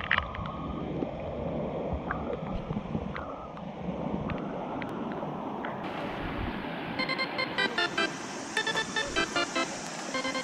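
Shallow river running over stones, a steady rushing. About seven seconds in, background music with a repeating plucked melody starts over it.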